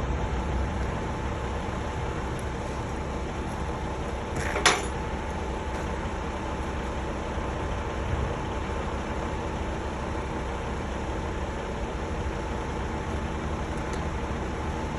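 Steady machine running with a low rumble and hum, with one sharp knock about four and a half seconds in.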